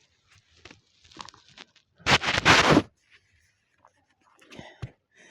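A person making one harsh, rasping throat sound that lasts under a second, about two seconds in, with faint small clicks and breaths around it.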